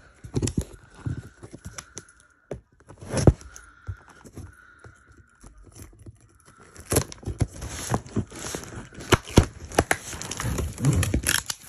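Nail clippers snipping and scraping at a cardboard box and its packaging, with irregular sharp clicks, tearing and crinkling that get busier in the second half.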